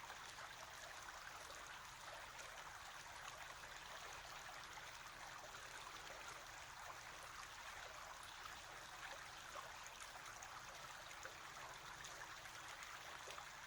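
Faint, steady running water, a stream flowing without a break.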